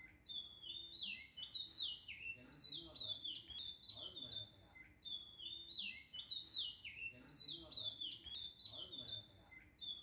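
Birds chirping: quick runs of short falling chirps, over a steady high-pitched tone.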